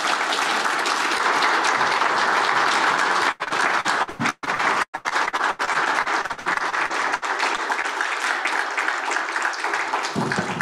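Audience applauding, fullest in the first few seconds and thinning toward the end, with a few brief drop-outs about four seconds in.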